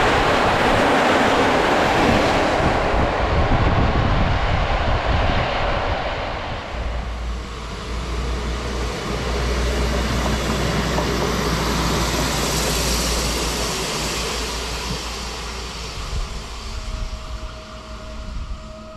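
A passenger train's carriages rolling past on the rails with a broad rushing noise. About seven seconds in this gives way to a short regional railcar running with a steady low rumble that fades as it pulls away.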